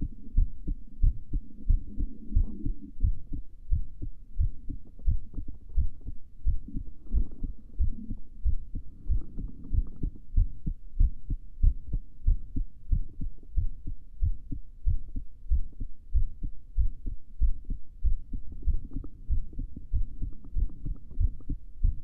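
A woman's heartbeat at rest before sleep, a steady, regular run of low lub-dub thumps.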